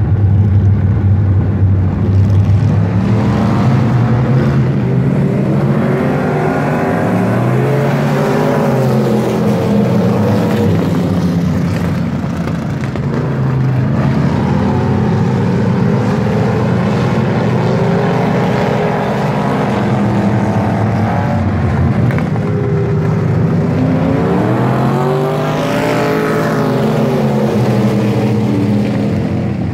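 Several dirt-track race car engines running around the oval, their pitch rising as the cars accelerate and falling as they lift off. The engines are loudest and highest about a third of the way in and again near the end, as the pack comes past.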